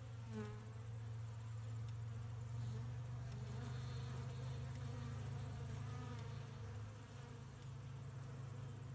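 Honeybees buzzing in a steady hum around a hive under a robbing attack. Now and then a single bee flies close past, its buzz rising and falling in pitch.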